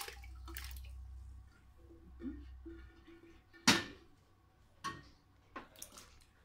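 Kitchenware being handled as rinsed hominy corn is tipped from an enamel bowl into a metal pot: a low rumble at first, then one sharp knock a little over halfway through, followed by a few lighter knocks.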